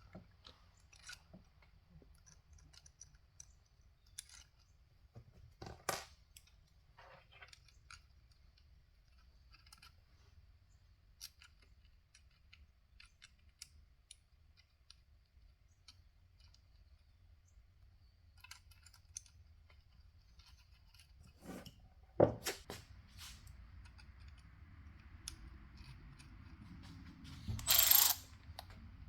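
Faint, scattered metallic clicks and taps of small clutch parts, springs and bolts being handled and set in place on the engine. There is one sharper knock about two-thirds of the way through and a short louder rasp near the end.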